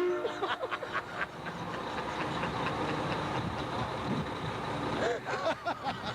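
Train horn fitted to a fire rescue truck cutting off sharply at the very start. A steady rumbling background noise follows, with faint voices here and there.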